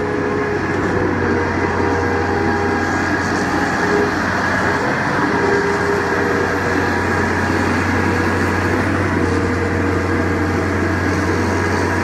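Putzmeister 24Z concrete pump running while pumping concrete: a loud, steady low engine hum with a few constant whining tones above it.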